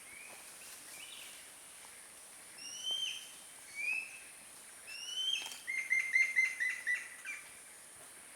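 A bird calling: three separate slurred whistled notes, then a quick run of about six short notes in the second half, over a steady high-pitched hiss.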